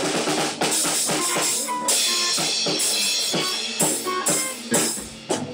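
Live rock band playing, led by a drum kit beating steadily, with cymbals washing through the middle stretch.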